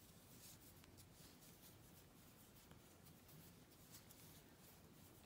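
Near silence, with faint scratchy rustling of a crochet hook drawing yarn through double crochet stitches.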